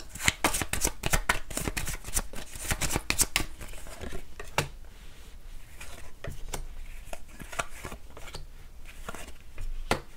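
A deck of tarot cards being shuffled by hand: a quick run of card snaps for the first few seconds. After that come sparser single taps as cards are dealt one at a time onto a tabletop.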